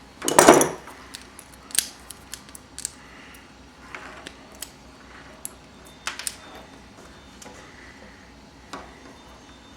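Hand wire strippers working on thin wires, stripping off insulation: a louder scraping burst about half a second in, then a scatter of sharp metallic clicks and snips.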